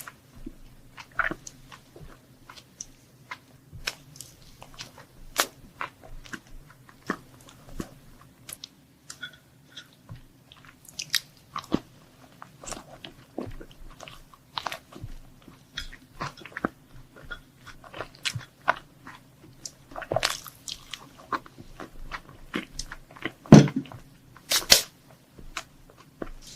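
Close-miked biting and chewing of crunchy chocolate sweets: irregular crisp crunches throughout, the two loudest near the end.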